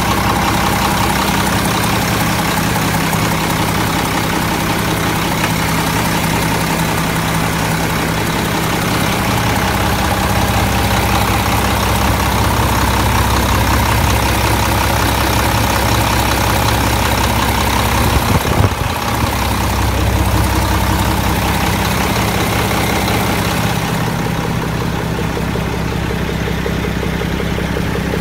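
Mack Granite dump truck's diesel engine idling steadily, with a steady high whine over the low idle.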